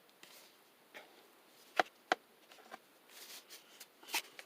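Handling noise from a plastic-bodied heat gun: a few sharp clicks and taps, the two loudest close together about two seconds in, with the heat gun switched off.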